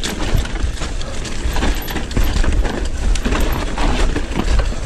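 Wind buffeting the microphone over the rolling of tyres on dirt and dry leaves, with the frequent rattles and knocks of an electric mountain bike riding down a rough trail.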